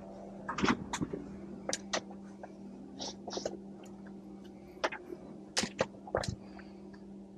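Brief scratchy rustles and clicks, about a dozen at irregular intervals, over a steady low hum inside a lift car: clothing and small movements rubbing close to a clip-on microphone.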